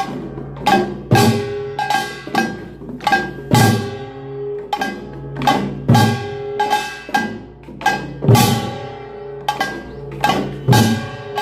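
Korean pungmul percussion band playing: small brass gongs (kkwaenggwari) clanging in a fast rhythm over drums, with a large gong (jing) struck about every two and a half seconds and ringing on low between strokes.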